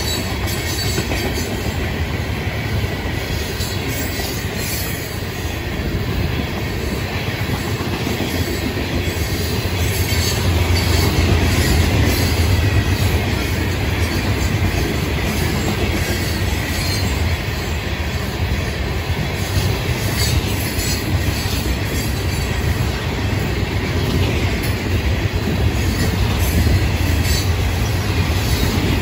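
Freight cars of a Florida East Coast Railway train (covered hoppers, then open rock hoppers and boxcars) rolling steadily past at close range: a continuous low rumble with frequent clicks of wheels over the rail.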